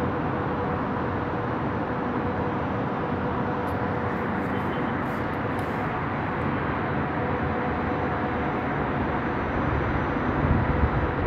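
Steady rushing of sandstorm wind past a high-rise balcony, with a faint steady hum under it. A stronger gust buffets the microphone near the end.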